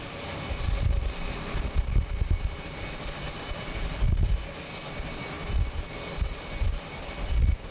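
Jet airliner engines at takeoff thrust as the plane climbs away: a steady, distant rush with a faint high whistle. Gusty wind buffets the microphone on and off, the loudest sound throughout.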